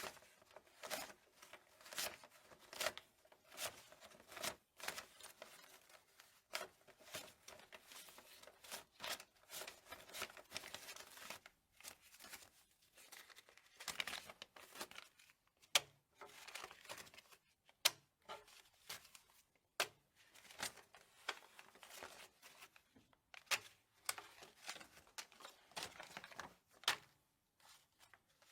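Paper banknotes being handled: rustling and crinkling in a long run of short, irregular crackles.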